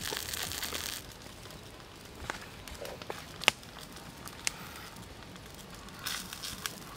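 A hiss of liquid in the pan for about the first second, then a wood fire crackling under the wok with a few sparse, sharp pops. A brief rustle comes about six seconds in.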